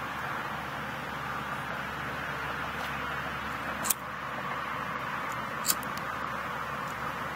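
Steady, even background noise like distant traffic or wind, with two sharp clicks about two seconds apart near the middle.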